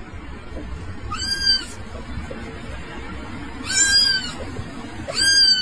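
Kitten meowing three times: short mews that rise and fall in pitch, about a second and then again four seconds in, over background music.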